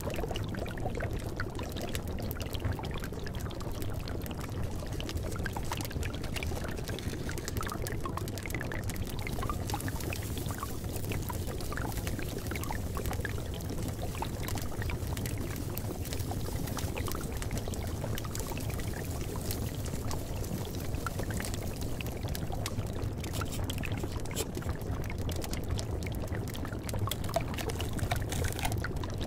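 Steady, unbroken running-water noise, a continuous watery rush with no pauses or changes, of the kind used as the masking track of a subliminal audio.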